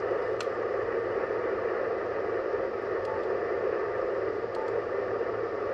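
Yaesu FT-710 HF transceiver's speaker giving a steady hiss of static on the 10-metre band, with a couple of faint short beeps. The owner puts the noise down to interference spikes from his solar inverter.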